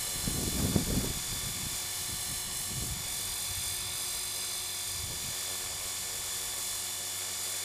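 450-size electric RC helicopter hovering in GPS position hold: a steady high-pitched whine of motor and rotors. Low wind buffeting on the microphone in the first second.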